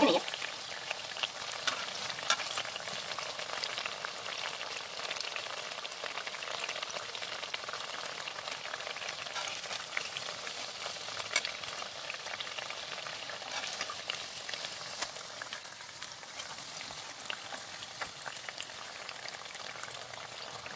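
Sabudana vadas deep-frying in hot oil: a steady sizzle with fine crackles throughout.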